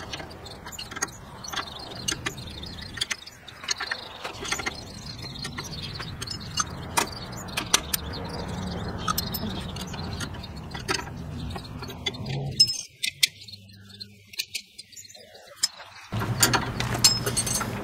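Irregular metallic clicks and clinks of hand tools on a C-frame ball joint press as it is wound in to push a new ball joint into the steering knuckle. A low steady background hum runs underneath, dropping away for a few seconds about three-quarters through.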